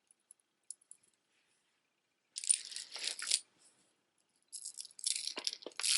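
Strands of small shell beads clicking and rattling against each other as they are handled. A few light ticks come first, then two spells of rattling: one about two and a half seconds in, and another from about four and a half seconds in.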